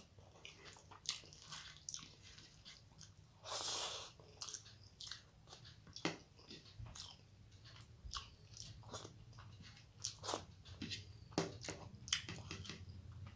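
Close-up chewing and mouth sounds of a person eating rice and curry by hand: irregular wet smacks and clicks, with one longer breathy burst about four seconds in.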